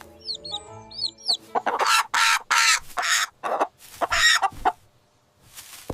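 Chickens clucking and squawking in a run of loud, rough calls, after a few faint high chirps at first.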